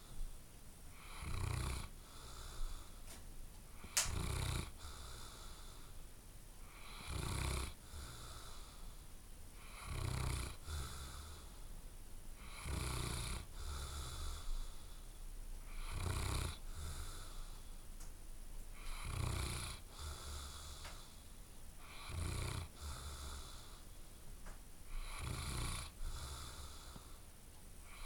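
Sleeping dog snoring loudly, one snore about every three seconds, with a single sharp click about four seconds in.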